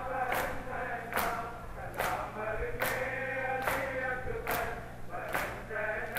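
A crowd of mourners doing matam, beating their chests in unison about seven times, a little under once a second, while a male chorus holds the sung lines of a nauha lament.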